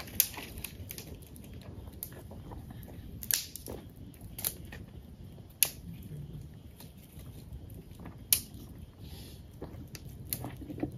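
Small campfire of twigs and rubbish crackling, with a handful of sharp pops and snaps spread irregularly through.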